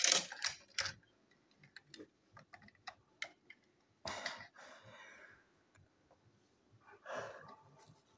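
Plastic toy train engines clicking and knocking as they are handled and set down on a shelf: a cluster of clicks at the start, scattered light ticks, and short rustles about four and seven seconds in.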